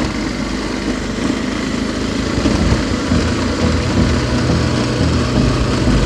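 Bajaj Pulsar 220's single-cylinder engine running steadily at low revs as the motorcycle rolls over a rocky dirt track, with track and wind noise mixed in.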